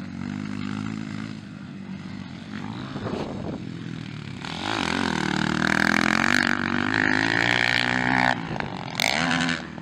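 Motocross dirt-bike engines revving on the track, their pitch rising and falling with throttle and gear changes. They get louder about halfway through as a bike comes close, then dip briefly near the end.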